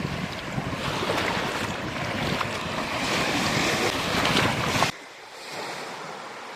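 Sea surf washing onto the shore: a loud rush of waves that swells for about five seconds, then drops suddenly to a softer wash.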